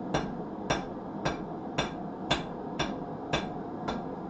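Blacksmith's hammer striking a hot iron nail on an anvil in a steady rhythm of about two blows a second, eight blows in all, as the nail is shaped against the anvil's edge.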